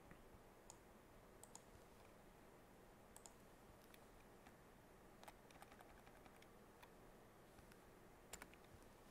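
Near silence with faint, scattered clicks of a computer mouse and keyboard as code is scrolled, selected and run. A pair of slightly louder clicks comes near the end.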